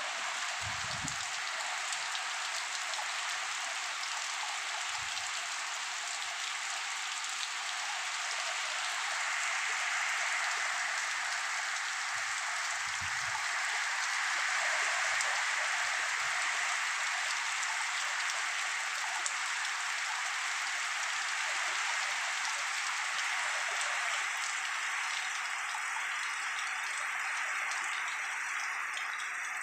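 Heavy rain pouring steadily, a dense even hiss that swells a little in the middle, with a few faint low thuds.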